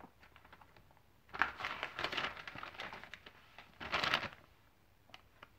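Paper rustling and crinkling as Bible pages are leafed through to find a passage: a longer stretch from about a second in, then a short one near four seconds.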